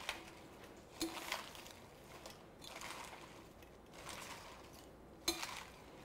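Romaine lettuce leaves being tossed with metal tongs in a glass bowl: faint rustling and crunching, with a sharp click about five seconds in.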